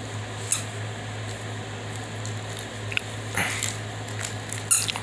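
A puppy mouthing and chewing on a hand, with rustling against fur and bedding, a short high squeak about half a second in and another near the end, over a steady low hum.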